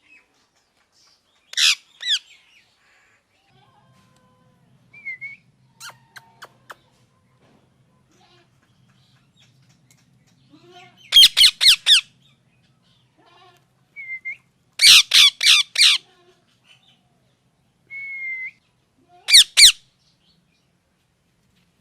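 Ringneck parrot squawking in loud, harsh clusters of two to four rapid calls a few seconds apart, with softer short chirps and whistles in between.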